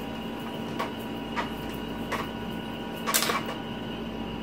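A flannel cloth rubbing over the glass of a small makeup mirror: a few faint wiping strokes, then a short, louder rustle of handling a little after three seconds in, over a faint steady hum.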